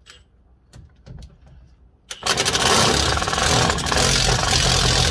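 Small impact gun hammering on an 11mm socket for about three seconds, starting about two seconds in, with a short second burst near the end, working a stubborn brake dust shield bolt loose. A few light clicks of the socket being handled come before it.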